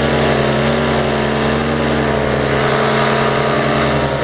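Paramotor engine running steadily at a constant throttle.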